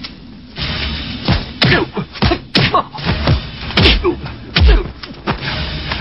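Kung fu fight sound effects: a rapid series of swishing blows and thudding hits, each swish falling quickly in pitch.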